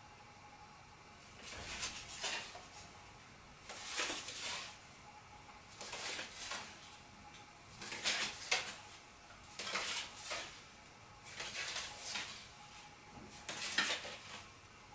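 Playing cards being handled: short crisp rustles and clicks of card against card, repeating about every two seconds, as single cards are peeled off a deck and set in place.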